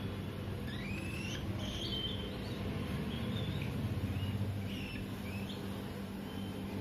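Baby cockatiel chick making a series of short, high, squeaky begging calls, some of them rising in pitch, while being hand-fed from a syringe. A steady low hum sits underneath.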